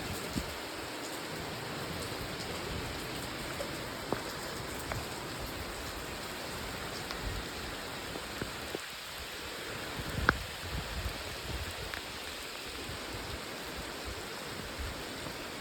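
Steady rain falling, an even hiss with a few scattered louder drips; the sharpest drip lands about ten seconds in.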